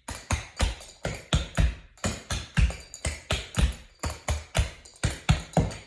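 Clogging shoe taps striking a hard floor as a dancer steps through a vine pattern, a quick uneven run of sharp metallic clicks, about three to four a second.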